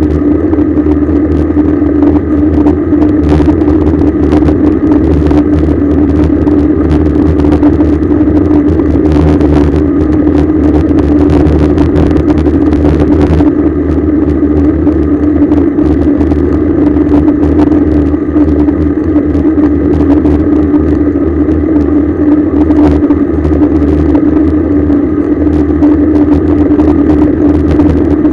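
Steady, loud wind and road rumble picked up by a bicycle-mounted action camera while riding, with a constant low hum underneath.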